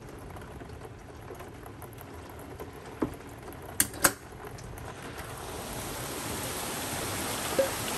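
Heavy rain pouring outside, a steady hiss that grows louder about five seconds in, with a few sharp clicks in the middle and one near the end.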